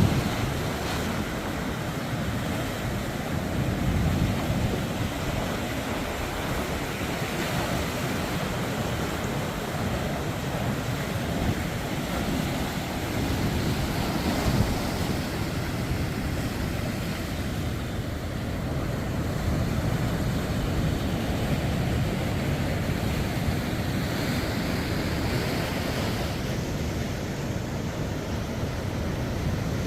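East Sea surf in winter: waves washing in and breaking on the shore, the rush of water swelling and easing every few seconds.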